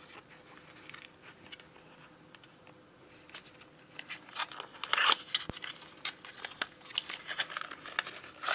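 A small thin cardboard box being opened and unfolded by hand: scraping and rustling of card, sparse at first and busier in the second half, with a sharp tap about five and a half seconds in.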